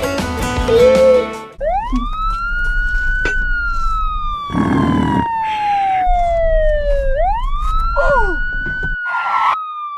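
A siren wails twice: each cycle rises quickly, then falls slowly over several seconds. Guitar music stops about a second and a half in, just before the siren starts.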